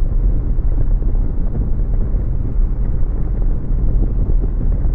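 Steady low rush of wind and engine from a 2017 Harley-Davidson Road King's Milwaukee-Eight V-twin, cruising at highway speed, picked up by a bike-mounted camera.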